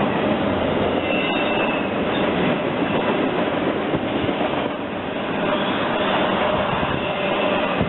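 CSX intermodal freight train rolling past at speed: loud, steady rumble of steel wheels on rail, with faint thin wheel squeal coming and going over it.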